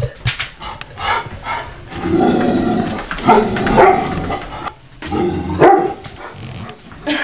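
Large black dog barking at a cat in a run of loud, sharp barks, densest and loudest in the middle and again about five and a half seconds in.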